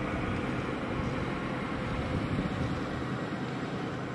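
Steady, even roar of flight-line engine noise with no clear pitch.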